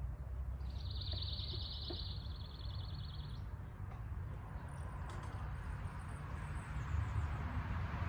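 A bird's rapid, even trill lasting about three seconds, over a steady low outdoor rumble that swells near the end.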